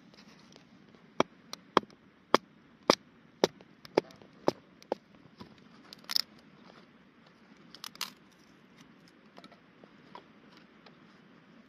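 Knife carving a stick of wood into long thin strips: a run of sharp clicks about twice a second as the blade bites and snaps through the wood, then two short rasps near the middle as strips peel away.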